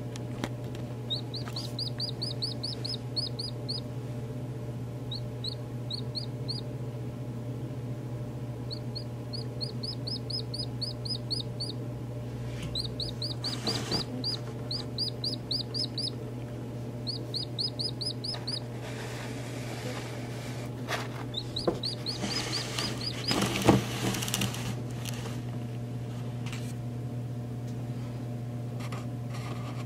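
A pheasant–chicken hybrid chick peeping in quick runs of short, high, downward-sliding cheeps, about six a second, with pauses between the runs. A steady low hum runs underneath. About two-thirds of the way through there is a short spell of rustling with a sharp knock.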